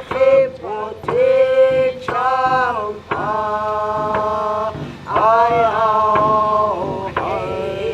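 A single voice singing a chant-like song in long held notes that slide into each pitch, with faint sharp beats about once a second.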